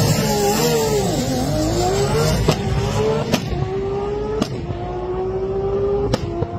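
Nissan Skyline R34 GT-R drag car launching and accelerating hard down the strip, its engine pitch dipping and then climbing. Four sharp cracks break the note as it pulls away.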